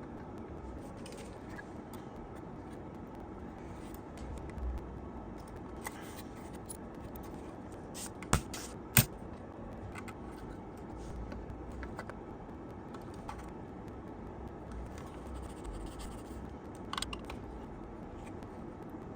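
Small handling noises: scattered light scrapes and soft clicks, with two sharp clicks a little over eight and nine seconds in, over steady background noise.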